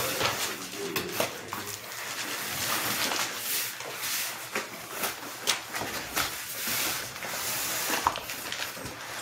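A large cardboard box of flat-pack furniture being handled and tipped up: cardboard scraping and rustling with scattered knocks.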